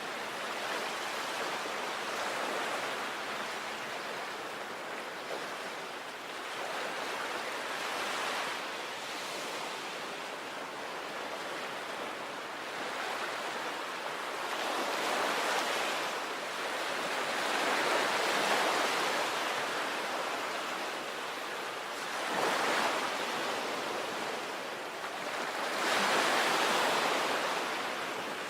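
Sea waves washing onto a shore, a continuous rushing surf that swells and ebbs every few seconds, with the loudest surges in the second half.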